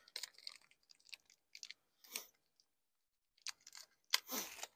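Faint crinkling and small clicks of hands fumbling through a small parts packet to pick out a self-tapping screw, with a louder rustle about four seconds in.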